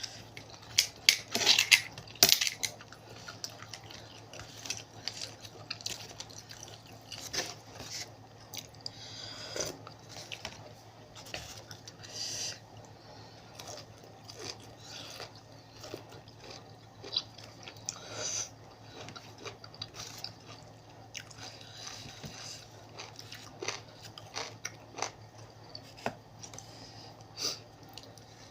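Close-up sounds of a person chewing and biting into spicy seafood papaya salad, wet mouth sounds with crunches and short crackles. The loudest bites come within the first two or three seconds.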